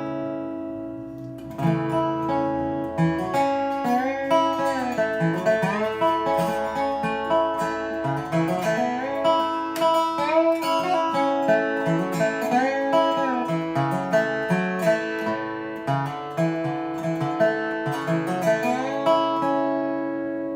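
Dobro resonator guitar played with a slide bar and a Beard capo clamped on: picked notes with frequent slides up and down over ringing open strings.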